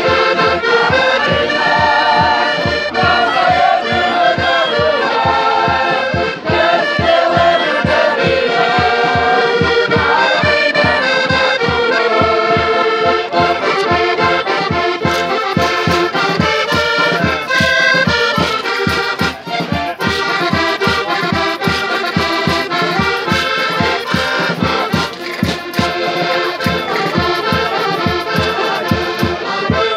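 Portuguese folk group playing a traditional tune: accordion over a steady drum beat, with scraper and tambourine, and voices singing together in chorus.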